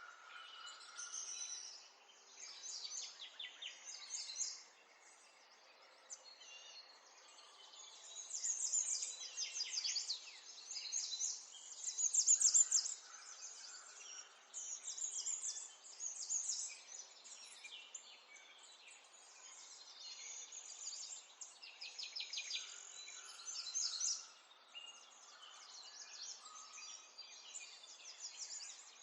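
Garden songbirds chirping and twittering, several birds at once, in bouts of fast high trills with short lulls between, over a faint steady background hiss.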